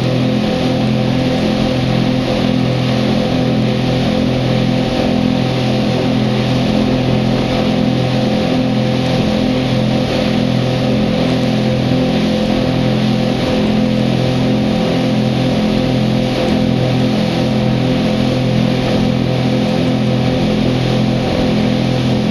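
Twin outboard motors on a speedboat running steadily at cruising speed, a constant drone mixed with the rush of wake water and wind.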